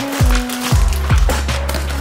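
Background music with a deep, sliding bass line and a steady beat.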